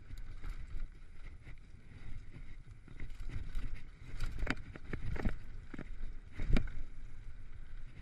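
Mountain bike descending a rough dirt singletrack: a steady rumble of tyres and wind noise, broken by sharp knocks as the bike hits bumps, the loudest about four and a half and six and a half seconds in.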